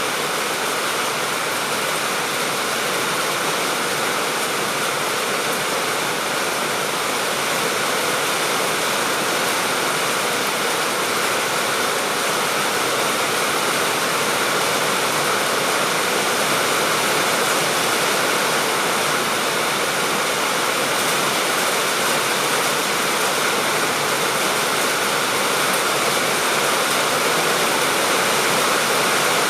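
Heavy rain falling in a steady, even hiss, growing slightly louder over the stretch.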